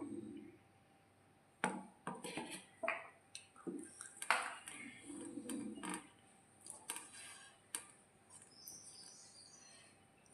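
Close-up eating sounds: chewing and mouth noises with a series of sharp clicks and scrapes of a plate.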